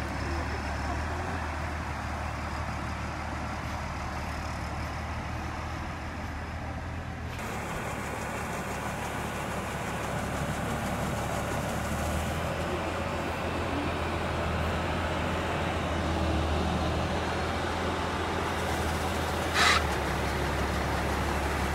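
Tracked rice combine harvester's engine running steadily while its grain auger unloads. A brief sharp high-pitched noise cuts through near the end.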